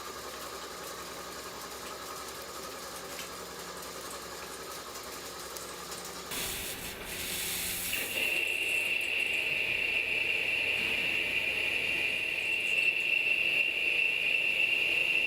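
CNC turning centre machining metal, with a steady machine hum. About six seconds in the sound changes abruptly, and from about eight seconds a loud, steady high-pitched whine of the cut takes over.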